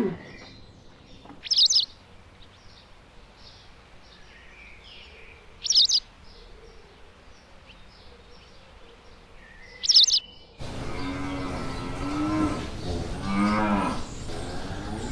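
A bird gives a short, sharp, high call three times, about four seconds apart, over faint background chirping. Then the recording cuts to a cow mooing, two long low moos.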